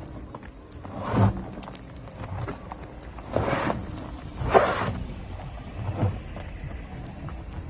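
Tyres of an electric SUV crunching and scrabbling over loose gravel as it climbs a steep dirt track, with a few louder crunches at about one, three and a half, four and a half and six seconds over a low steady rumble.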